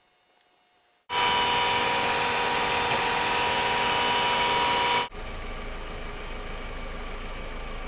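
1998 Toyota Camry's four-cylinder engine started about a second in, loud for about four seconds, then dropping suddenly to a steady idle; it is running on a newly fitted alternator.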